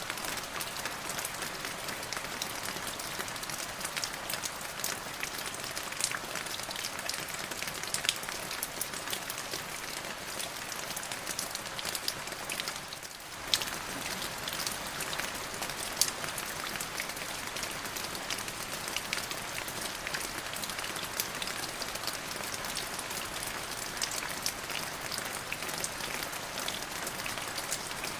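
Steady rain: an even hiss with many sharp individual drop hits scattered through it. It briefly thins about 13 seconds in, then carries on.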